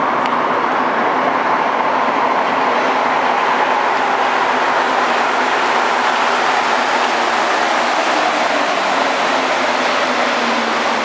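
Rubber-tyred Montreal metro train, an MPM-10 Azur, entering the station and running along the platform: a loud, steady rumble with a low hum that falls in pitch near the end.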